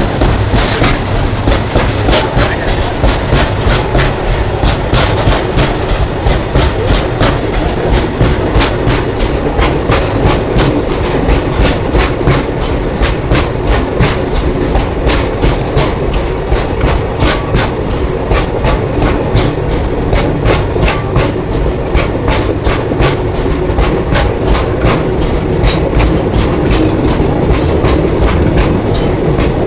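Passenger train running along the track: a steady rumble with a continuous rhythmic clickety-clack of wheels over rail joints.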